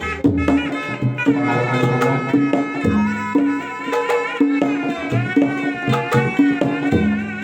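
Traditional folk music: pitched hand-drum strokes in a steady rhythm, about two to three a second, under a wavering melody line.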